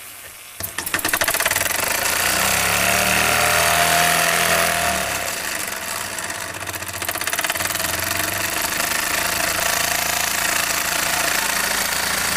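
Jensen 60 toy live-steam engine starting about half a second in when its flywheel is spun, then running fast and steady with a rapid, even mechanical clatter.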